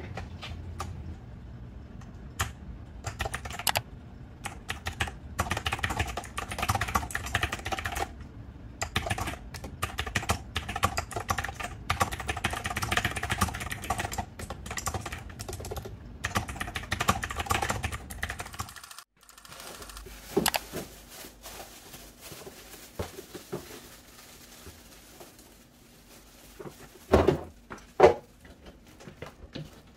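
Fast typing on a retro typewriter-style keyboard with round keycaps: a steady stream of crisp key clicks. It cuts off about two-thirds of the way in, leaving a quieter stretch with a few scattered knocks and two louder knocks near the end.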